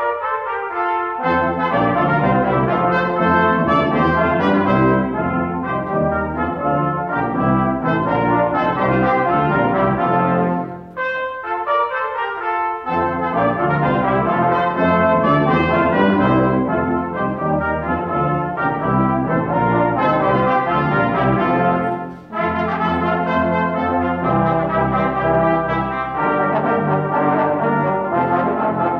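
Brass quintet of two trumpets, French horn, trombone and tuba playing a piece together in full harmony, with short breaks between phrases about eleven and twenty-two seconds in.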